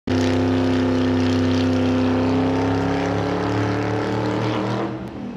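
A race car engine running at a steady pitch, as an intro sound effect, growing quieter about five seconds in.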